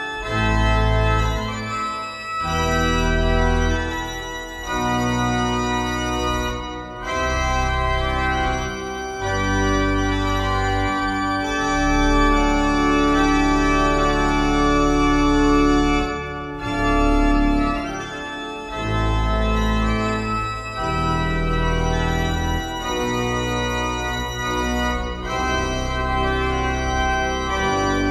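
A 1913 Heinrich Schiffner pipe organ playing a slow piece in sustained chords that change every second or two over deep bass notes, with brief breaks between phrases.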